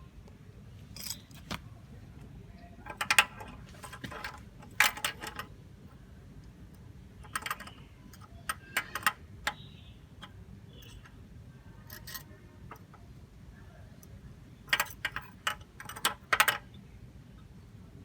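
Irregular clicks and short metallic rattles of small hard parts being handled, with several louder clusters about 3, 5 and 15 to 16 seconds in, over a faint steady hum.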